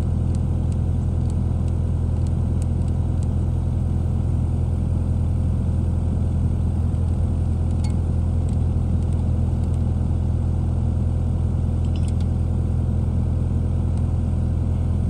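Kubota KX057-4 mini excavator's diesel engine idling steadily. A few faint clicks come from a hand grease gun being worked on the track adjuster, pumping in grease to tighten the slack track.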